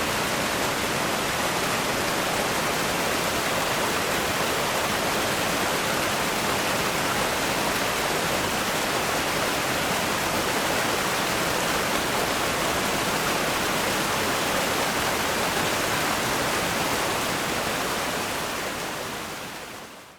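Fast-flowing river rapids rushing steadily, fading out over the last couple of seconds.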